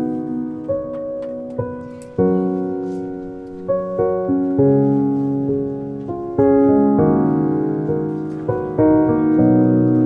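Background piano music: chords struck about once a second, each ringing and fading away.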